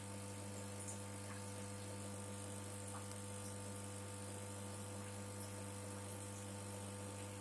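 A steady low hum with a few fainter, higher steady tones above it, unchanging throughout.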